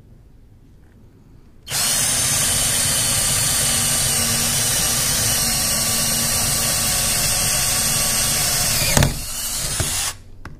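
Cordless drill with a twist bit boring through a wooden wall stud. It starts about two seconds in and runs steadily for about seven seconds. A sharp knock near the end is followed by a brief quieter run before the drill stops.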